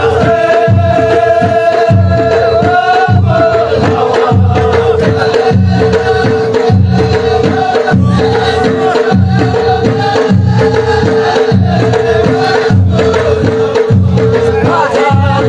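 Ahwash music: a chorus of men chanting over frame drums, whose low beat repeats steadily about once every second, under a held note that does not break.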